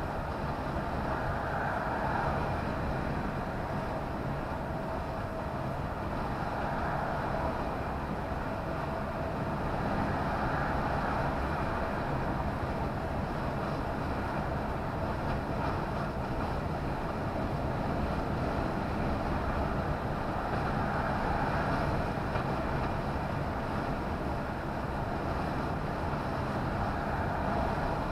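Steady engine and tyre noise of a lorry cruising at road speed, heard from inside the cab, with a low rumble that swells and eases gently a few times.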